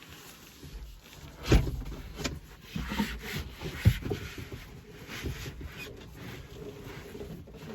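Hand-work noises: rubbing and scraping with a few sharp knocks, the loudest about a second and a half in and again near four seconds.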